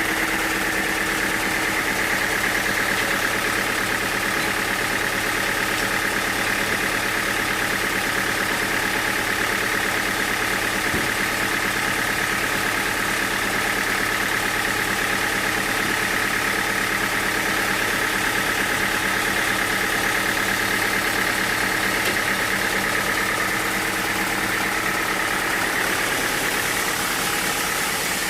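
Sawmill machinery running steadily: a constant engine hum with a steady higher whine that does not change in pitch or level.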